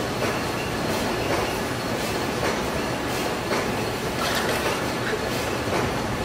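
Steady mechanical running noise with scattered light clicks and knocks as metal parts of a patty-forming machine's conveyor are handled and taken apart.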